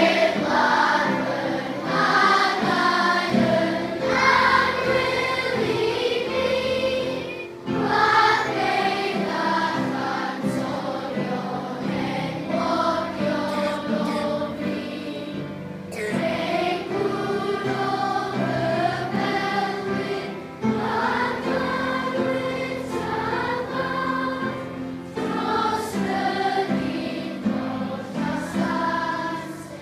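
A large group of schoolchildren singing a song together, phrase after phrase, with brief pauses for breath every few seconds.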